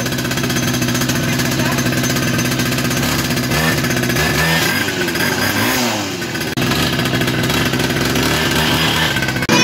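Small 49cc two-stroke pocket bike engine running steadily, its pitch swinging briefly up and down around the middle.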